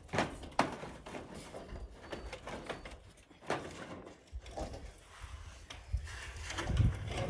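Hand work on corrugated steel roofing: short, irregular scrapes and knocks, a few each second.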